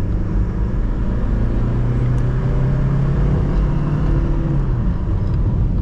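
Alfa Romeo car driving, its engine running steadily over road and tyre rumble; the engine note climbs for a couple of seconds, then eases off about four and a half seconds in.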